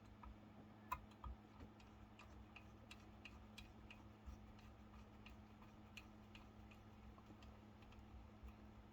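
Faint, uneven small clicks of a hand tool and metal parts as a small screw is worked in to start it on the model excavator's leg, over a steady low room hum.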